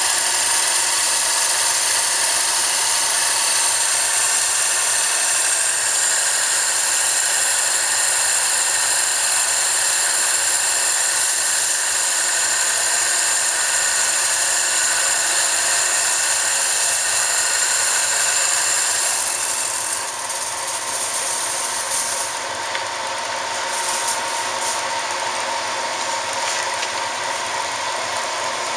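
1967 Tsugami T-SPL chucker lathe cutting metal bar stock held in its three-jaw chuck, the tool throwing off long curled chips with a steady high-pitched hiss and whine. About twenty seconds in the cut ends and the sound drops to the spindle running freely, quieter.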